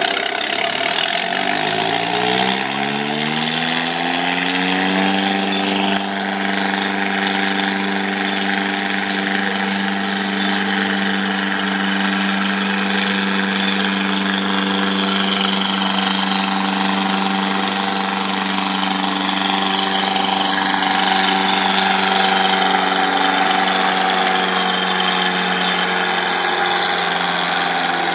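Antique tractor engine pulling a weight-transfer sled under load. Its pitch rises over the first few seconds as the engine speeds up, then holds steady at high speed for the rest of the pull.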